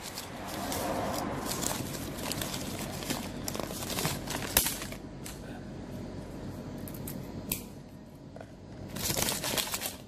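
Paper wrapping of a vending-machine hamburger being unfolded and handled: irregular crinkling and rustling, loudest about halfway through and again near the end.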